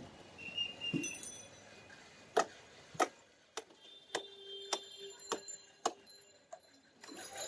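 A regular series of sharp knocks, about one every 0.6 seconds, eight in all, starting a little over two seconds in.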